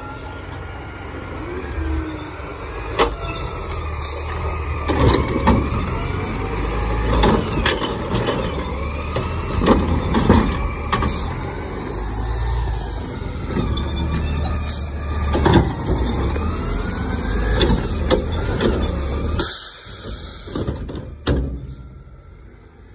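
Mack front-loader garbage truck running, its diesel engine revving with a whine that rises and falls as the cart-grabbing arm on its front can works, with repeated clanks and bangs of recycling carts and their contents being handled and tipped. It goes quieter near the end.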